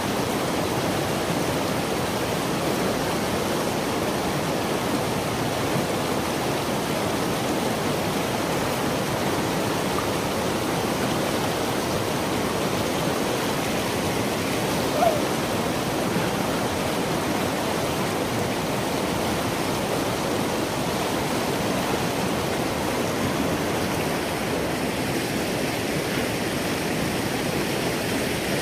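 Steady rush of a rocky creek's shallow rapids pouring between smooth boulders, an even, unbroken water noise. A short faint squeak rises briefly about halfway through.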